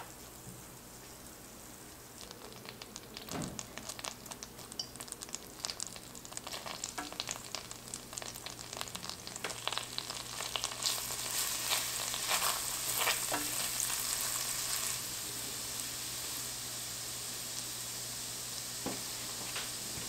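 Butter melting and foaming in an enamelled cast-iron pan, crackling more and more, then minced garlic frying in it and stirred with a wooden spatula. The crackle grows louder about halfway through and settles into a steady sizzle near the end.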